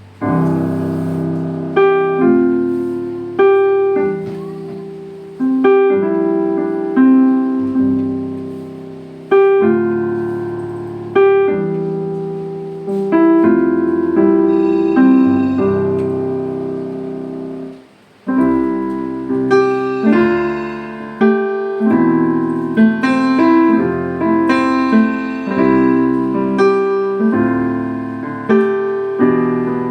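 Digital workstation keyboard playing a piano sound: chords struck about every one to two seconds, each dying away. After a short break about eighteen seconds in, the playing turns busier, with quicker notes.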